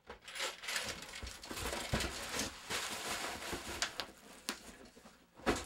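Plastic bubble wrap crinkling and rustling against cardboard as a packed computer terminal is unwrapped from its box, with a few sharp knocks along the way, the loudest just before the end.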